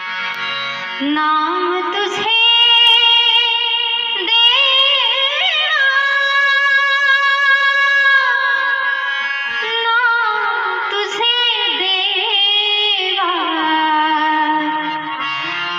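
A woman singing a Marathi devotional abhang in a very high, powerful voice, holding long notes with ornamented slides between them, over instrumental accompaniment.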